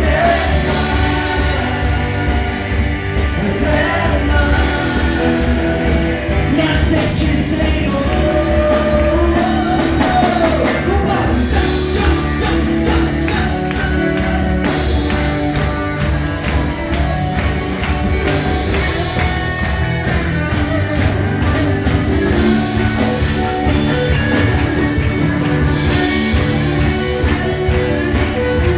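Church worship band playing live, with singing over a rock-style accompaniment and a steady beat.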